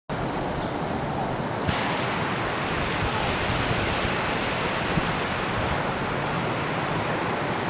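Fast-flowing floodwater rushing and churning, spilling over a low wall in a steady, loud rush; the hiss gets brighter a little under two seconds in.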